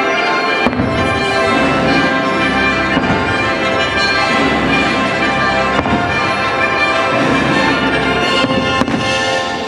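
Fireworks bursting over loud music, with a sharp bang about a second in and another near the end.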